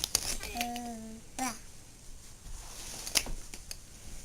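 A young child's short wordless babble that falls in pitch at the end, then a few sharp crinkles and taps from gift wrapping being handled.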